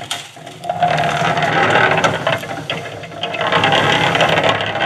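Concrete mixer running, its drum turning and emptying wet concrete into a wheelbarrow, with a steady clattering rattle.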